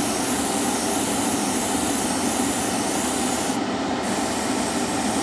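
Airbrush spraying lacquer paint at a heavy flow: a steady hiss of compressed air, mixed with the steady rush of the spray booth's extractor fan.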